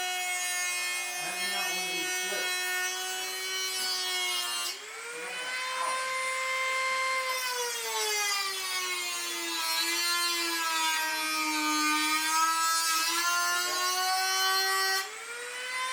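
High-speed power tool motor whining as it cuts the fender sheet metal for a flare. Its pitch dips briefly about five seconds in and then jumps higher, sinks slowly as it is loaded, and climbs back near the end.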